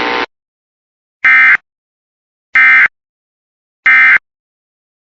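Emergency Alert System end-of-message signal: three identical short bursts of digital SAME data tones, about 1.3 s apart, marking the end of the alert broadcast.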